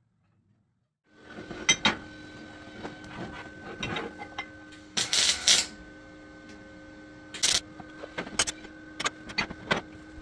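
MIG welder tacking steel parts: the arc crackles in short, loud bursts over the welder's steady hum. The sound starts about a second in, with the longest bursts near the middle and toward the end.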